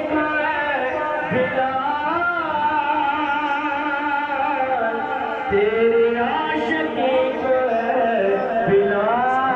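A single male voice sings a devotional naat without accompaniment, in long held lines with sliding ornaments.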